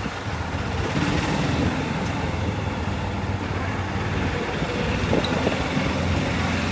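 Steady running noise of an open golf cart moving along a paved street: motor and tyre rumble with wind across the microphone.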